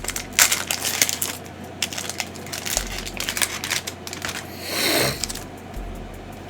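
Crinkling plastic wrapper of a trading-card hanger pack being handled and opened: dense crackles at first, then sparser ones, with a brief louder rustle about five seconds in.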